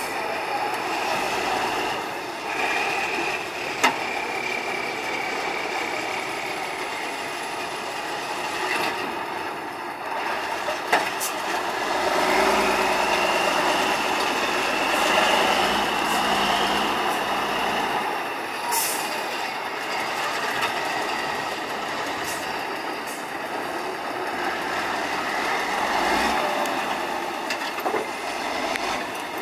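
Tatra 815 8x8 trial truck's diesel engine running under load and revving as it works through deep sand, with a whine rising slightly in pitch around the middle. A couple of sharp clicks or knocks are heard early on and about a third of the way through.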